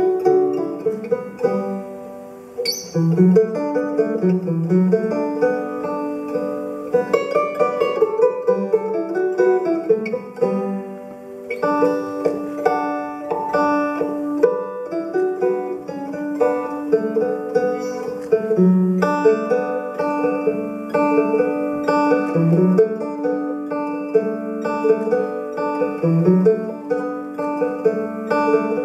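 Solo five-string banjo picked live: a melodic instrumental passage of plucked notes, easing off briefly about two seconds in and again around eleven seconds before carrying on.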